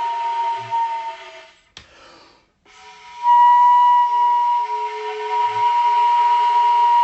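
Music of long, steady held tones. About two seconds in it cuts off with a click and goes nearly silent for about a second, then comes back louder on one high held note.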